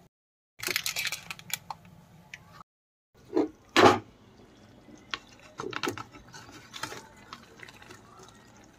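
Kitchen handling sounds in short edited snippets: rustling and clicking as a paper-wrapped block of butter is handled, then clinks and knocks of a plate and steel pots at a gas stove, the loudest a sharp clatter just before four seconds in. Two brief dead-silent gaps from edit cuts break it up.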